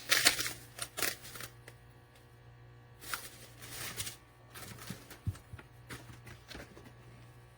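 Scattered clicks and rustling from objects being handled, loudest in the first second and again about halfway through, over a steady low hum.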